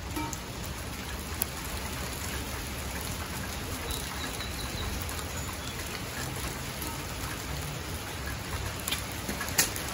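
Rain falling: a steady, even hiss, with a sharp tick about a second and a half in and another near the end.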